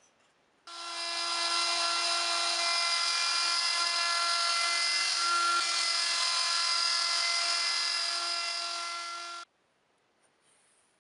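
Handheld compact router running at full speed while cutting a groove along a wooden board: a steady high whine at one unchanging pitch. It starts suddenly just under a second in and cuts off suddenly about a second and a half before the end.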